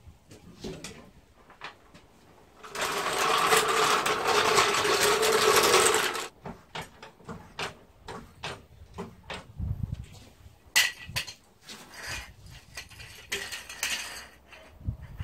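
A steady mechanical rattle for about three seconds, then a run of irregular clicks and metal knocks from a trolley jack and axle stands as the front of a small car is raised and set on stands.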